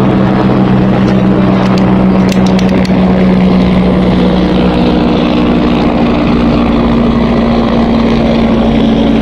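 An engine running steadily with a low drone, its pitch shifting slightly near the middle; a few faint clicks about two to three seconds in.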